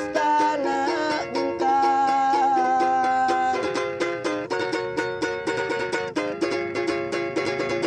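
Ukulele strummed in steady chords, with a voice singing long held notes over it for the first half; after about three and a half seconds the ukulele strumming goes on alone.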